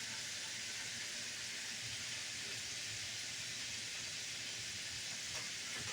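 Food frying in a pan: a steady sizzle of hot oil.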